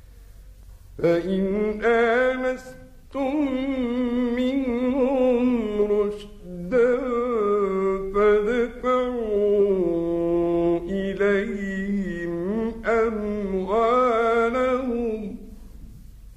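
A man chanting Qur'an recitation in a melodic style: long held phrases with wavering, ornamented pitch and brief breaths between them. The chanting starts about a second in and ends shortly before the end.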